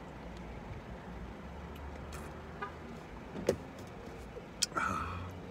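Low steady rumble inside a parked car's cabin, with two short sharp clicks about three and a half and four and a half seconds in.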